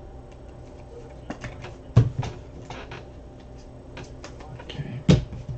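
Trading cards being handled: one is slid into a rigid plastic top loader and a stack is flicked through by hand, giving light clicks and rustles. Two dull knocks come about two and five seconds in.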